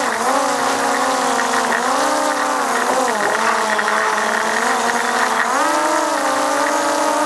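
Steady motor hum with a pitch that wavers up and down and steps higher about five and a half seconds in, over a constant hiss.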